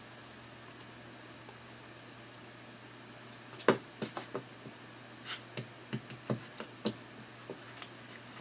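Cardboard board-game terrain pieces clicking and knocking as a top piece is pressed onto a set of steps. It is a quiet hum at first, then a string of light clicks and taps begins about halfway in, the first one the loudest.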